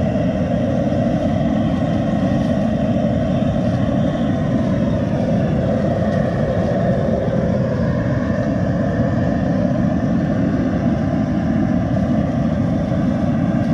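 Steady, loud roar of a propane jet burner, even in level with a deep rumble underneath.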